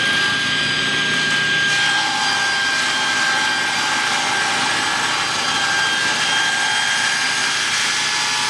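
Table saw running at full speed with a steady high whine while its blade crosscuts a thick hardwood board pushed through on a crosscut sled; a second steady tone joins the whine about two seconds in.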